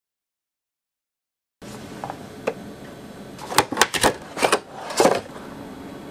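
Silence at first. Then, after about a second and a half, a low background hiss and a quick run of sharp clicks and crinkles as plastic packaging and a silicone mold are handled on a cutting board.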